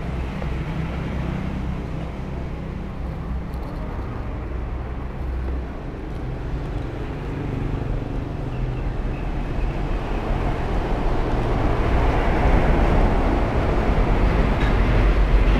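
Motor scooter engine idling with a steady low hum, growing louder in the second half.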